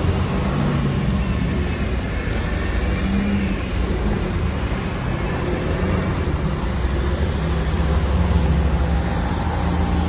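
Street traffic: cars driving past on a busy city avenue, a steady rumble of engines and tyres, with engine hums rising and fading as vehicles go by.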